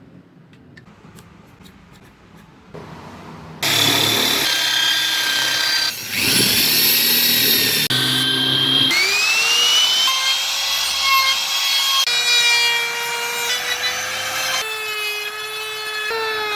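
Power tool running on wood, its motor whine rising and falling, in several short bursts that change abruptly; the first few seconds hold only faint clicks before the tool starts loudly about four seconds in.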